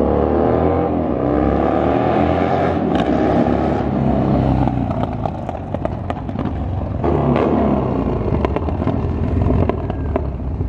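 V-twin motorcycle being ridden hard, its engine revving up in rising pulls through the gears as it runs down the street. It eases off around the middle, then accelerates again and grows louder as it comes back.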